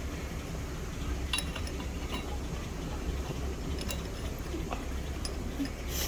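A handful of light metallic clinks, scattered irregularly, over a steady low hum of shop machinery.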